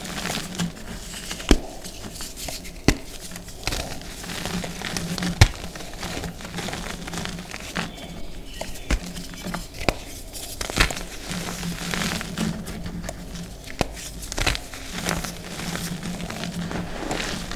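Hands crumbling and squeezing loose, dusty reformed gym chalk powder with small crumbly chunks: a soft rustling hiss broken by sharp crunches and crackles about once a second.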